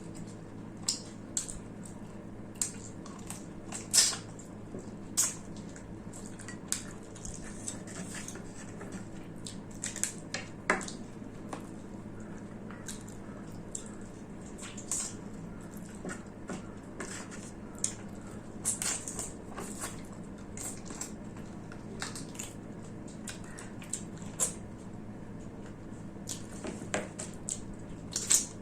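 Close-miked eating sounds: wet chewing, lip smacks and mouth clicks, irregular and a few a second, as mutton curry and rice are eaten. Under them runs a steady low hum.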